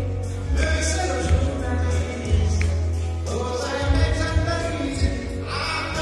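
A man singing live into a handheld microphone over music with a heavy bass line, amplified through a hall's stage speakers.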